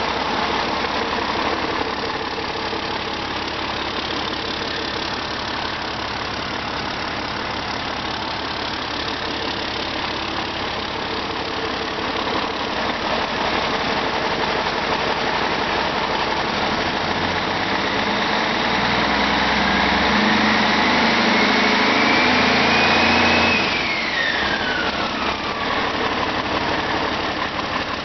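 2005 Cummins ISX EGR inline-six diesel engine running on a stand, idling at first. Past the middle it is revved up, growing louder with a whine that rises with it, then let off suddenly, the whine falling away as it drops back to idle.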